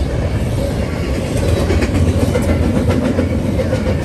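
A passing train: a steady heavy rumble, with wheels clattering over the rail joints from about a second and a half in.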